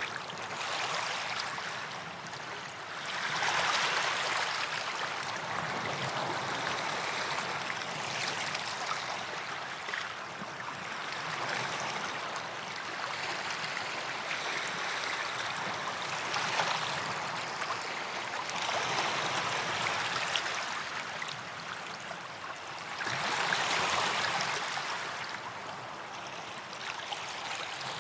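Small sea waves washing up a sandy beach and drawing back, the hiss rising and falling several times.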